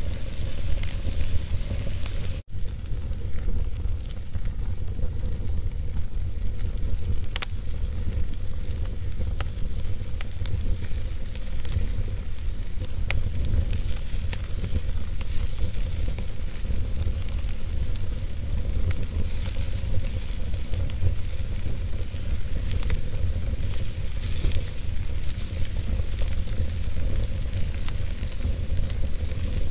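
Wood fire burning in an open hearth: a steady hiss and low rumble with scattered sharp crackles and pops. The sound drops out completely for an instant about two and a half seconds in.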